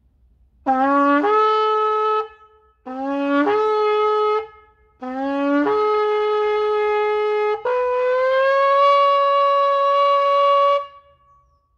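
Shofar (curved animal-horn trumpet) blown in three blasts, each starting on a low note and jumping up to a higher one, the third running on into a long held note of about three seconds with a slight rise in pitch.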